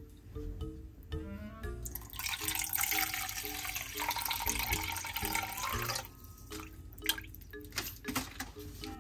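Liquid poured in a stream into a plastic measuring cup holding cubes of tofu, splashing steadily for about four seconds and stopping about six seconds in, after a brief rising gurgle. Light background music with a repeating note pattern plays throughout.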